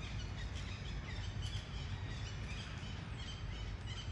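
Outdoor woodland ambience: a steady low rumble with scattered short, high bird chirps.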